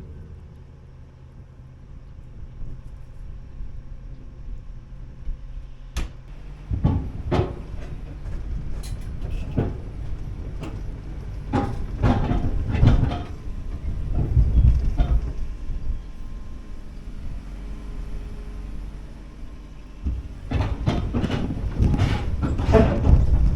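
Liugong 9051FZTS mini excavator's diesel engine running steadily, with many irregular clanks and knocks from the machine as it works and moves. The clanking gets busier and louder in the last few seconds.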